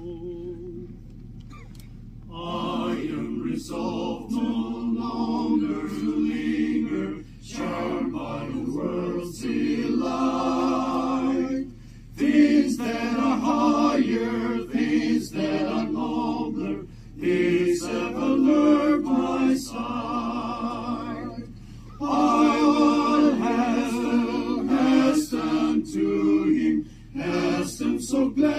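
A mixed group of men and women singing together without accompaniment, starting about two seconds in. The song moves in phrases of about five seconds with short breaks between them.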